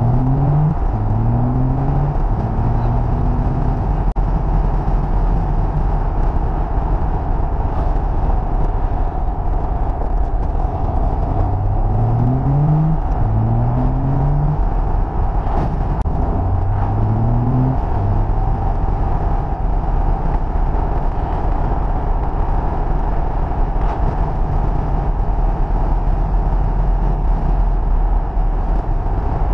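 Triumph TR5's 2.5-litre straight-six pulling on the move, its pitch climbing and dropping back in quick runs as it goes up through the gears, near the start and twice more around the middle. Underneath is a steady rumble of road and wind noise.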